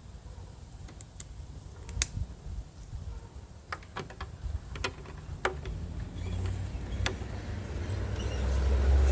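Scattered small sharp clicks and taps, about half a dozen, as an old turn-signal bulb is pulled from its socket and a new one is pushed in. A low rumble builds near the end.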